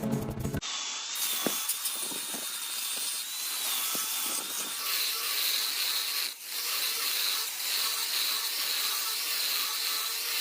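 A small power tool running steadily on wood, a high whine over a hiss, with a brief break about six seconds in.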